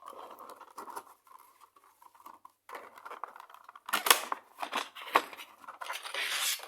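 Packaging of a 1/64 diecast model car being opened by hand: plastic crackling and sharp clicks and snaps, sparse at first and loudest about four to five seconds in, with a dense crinkling stretch near the end.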